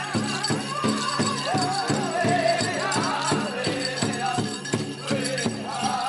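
Powwow drum music: a big drum struck in a steady, even beat of about three strokes a second, with voices singing over it and a rattling jingle from the dancers' regalia.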